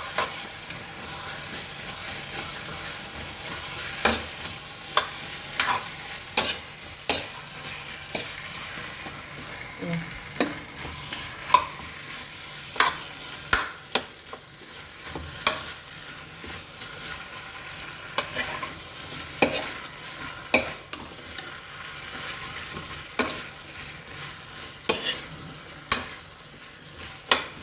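Potatoes frying in oil with onion and tomato masala in a kadai, sizzling steadily while a spatula stirs them, knocking and scraping against the pan irregularly every second or two.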